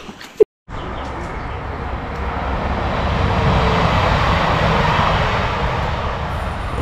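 A train passing on the railway line: a rushing rumble that starts abruptly just under a second in, builds to a peak midway and then begins to fade.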